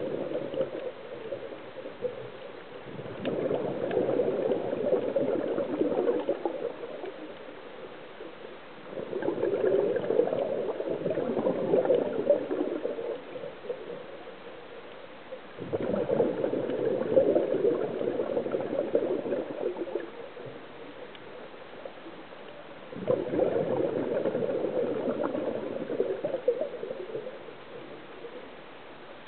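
Scuba regulator exhaust bubbles from a diver breathing underwater: four long bubbling bursts, each three to four seconds, one with each exhalation about every six to seven seconds, with quiet gaps between them for the inhalations.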